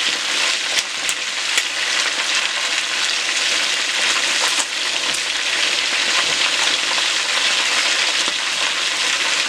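Chicken pieces sizzling steadily as they fry in hot oil, with a few light clicks as metal tongs turn them over.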